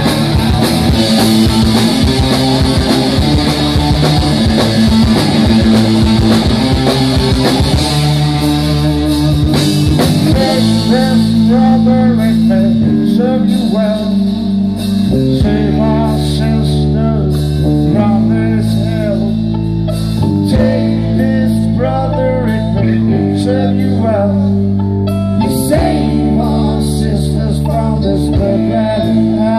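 Live rock band playing electric guitars, bass guitar and a Premier drum kit, with a singer at the microphone. About eleven seconds in, the loud, cymbal-heavy full-band passage drops back to a sparser groove of bass, guitar and vocal.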